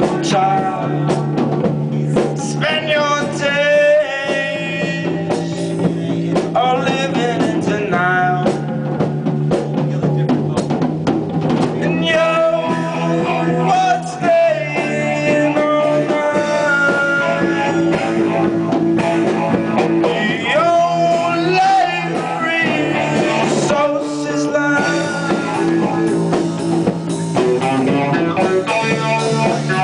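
A live rock band playing: electric guitar, bass guitar and drum kit, with a lead line of bending, wavering notes over a steady low bass.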